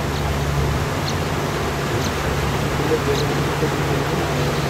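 A tour boat's motor running steadily under way, a low hum, with water rushing along the hull.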